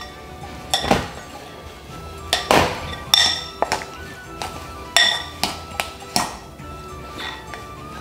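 Metal spoon clinking against a glass mixing bowl while stirring a thick mash of pumpkin and starch: about eight irregular strikes, each ringing briefly.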